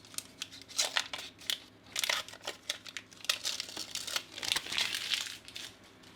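Panini sticker packet wrapper crinkling as it is torn open and handled: a run of irregular crackles that dies down near the end.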